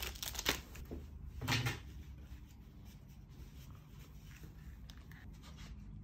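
A few brief rustles and handling knocks in the first two seconds, the loudest about one and a half seconds in, then only a faint low hum of room tone.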